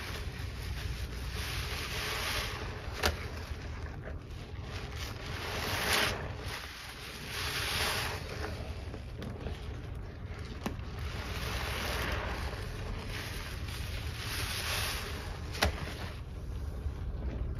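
Soaked sponge squeezed and kneaded by gloved hands in a basin of thick cleanser suds: wet squelching and sloshing that swells and eases. There are two short sharp clicks, about three seconds in and near the end.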